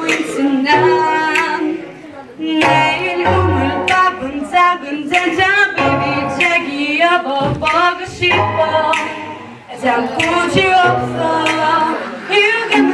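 Singing voice performing a melody, with short held low bass notes sounding intermittently beneath it.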